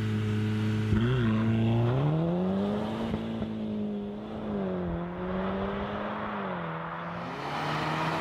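Volkswagen Golf 6 R Cabriolet's turbocharged four-cylinder engine and exhaust running. There is a short blip about a second in, then the note climbs around two seconds in, holds, and settles lower twice as the revs come down.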